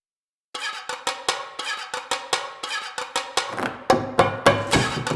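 Percussive background music: a quick, even beat of sharp wood-block-like hits over pitched notes, starting about half a second in, with deep drum hits joining near the end.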